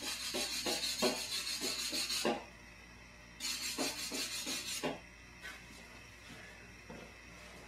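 Stick-welding arc from a homemade alternator-based DC arc welder crackling and hissing in two runs, about two and a half seconds and then about a second and a half, with a short break between. It is the first bead on a cracked bench vise, laid on DC negative polarity, which gives less penetration than the welder wants.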